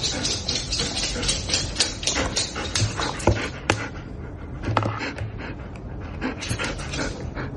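A dog panting, quick short breaths in a steady run that thins out after about four seconds.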